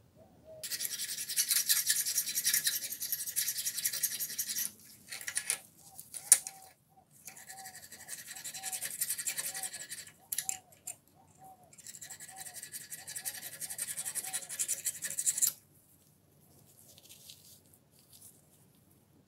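Rapid back-and-forth hand abrading of the rusted steel jaw of a vernier caliper, a dry rasping scrub in three bouts of three to four seconds each with short pauses between.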